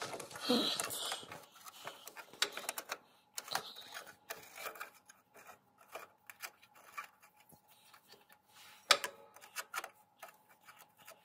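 Irregular light clicks and metallic taps of a socket ratchet and hand tools working a nut onto the bolt of a lawn tractor's steering sector gear, with one sharper clack about nine seconds in.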